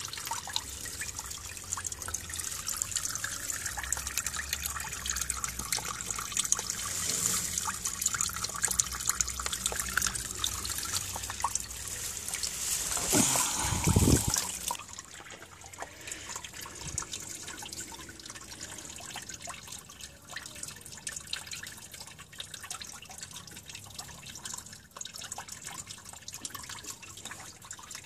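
Old antifreeze running out of a Mitsubishi Colt's radiator through the opened plastic drain plug, splashing steadily. It swells briefly, then about halfway through the flow falls away to a lighter trickle and drips as the radiator empties.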